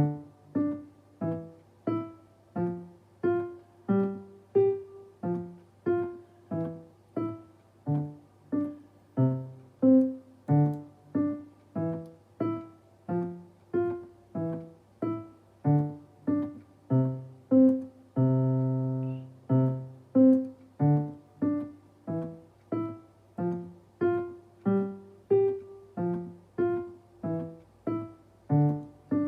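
Piano playing a simple beginner piece: short, separate notes at a steady pulse of about two a second, each dying away before the next, with one longer held chord about two thirds of the way through.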